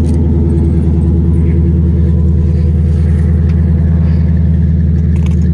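A nearby vehicle engine idling steadily, a low even hum.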